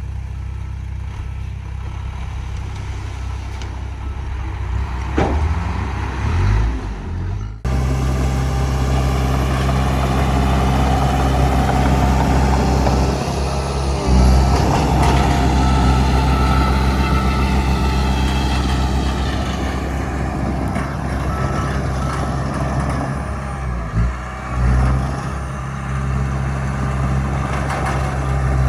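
Heavy diesel engines of construction machinery running with a steady low hum. After an abrupt change about a quarter of the way in, the engine noise is louder, with brief dips in level near the end.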